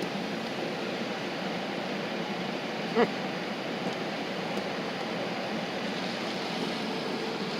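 Steady rush and low hum of an idling car with its climate fan running, heard from inside the cabin. A single short pitched blip about three seconds in.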